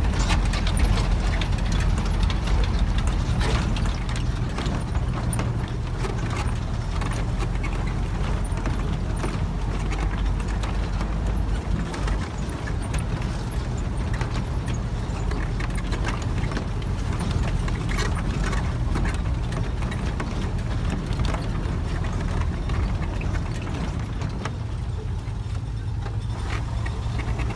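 Off-road four-wheel-drive vehicle engine running with a steady low rumble, with frequent knocks and rattles as it goes over a rough track.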